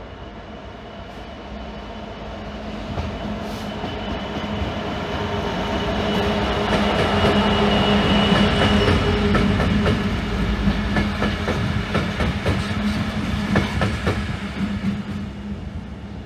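Three Freightliner Class 66 diesel locomotives running light past. Their EMD two-stroke V12 engines make a steady low hum that builds to a peak about halfway through. Then come rapid clicks from the wheels passing over rail joints, and the sound fades near the end.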